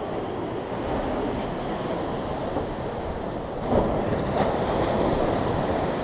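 Steady wind and ocean surf noise, with wind buffeting the microphone; it grows louder a little past halfway.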